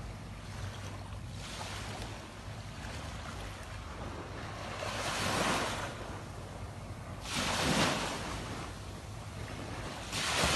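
Small waves washing onto a sandy beach, the wash swelling up three times in the second half, with wind rumbling on the microphone underneath.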